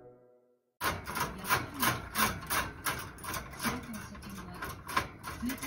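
A parrot scraping and rubbing against a metal wire cage grate: rasping strokes repeating about three times a second, starting about a second in after a brief silence.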